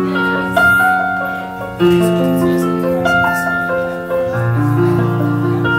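Electric keyboard played with a piano sound: held chords with a melody line above them, and a fresh chord struck about half a second in, again near two seconds, and again just past four seconds.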